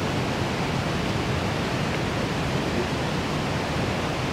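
Steady, even rushing noise with no clear calls or tones.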